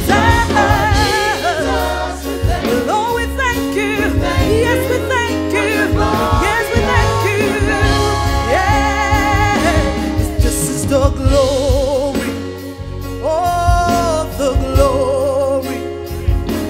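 Gospel choir singing with band accompaniment: voices hold and slide through long notes with vibrato over a steady bass line and a drum beat.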